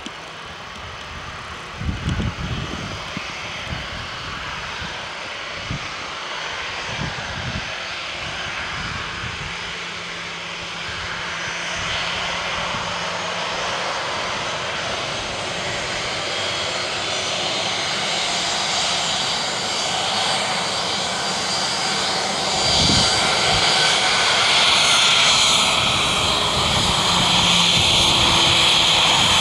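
Boeing 737-800's twin CFM56-7B turbofan engines at taxi power as the airliner rolls toward and past, a steady jet whine and rush that grows louder throughout, with a high whistle strongest near the end. A few short low thumps come in the first several seconds and once more later on.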